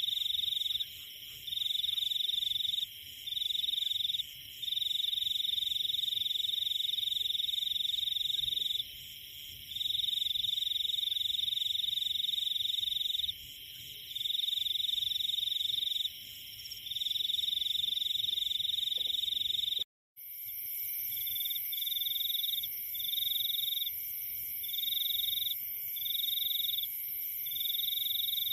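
Tropical forest chorus of calling animals: a steady high-pitched trill with short breaks every few seconds. It cuts off abruptly about two-thirds of the way through and gives way to a pulsing trill, about one pulse a second.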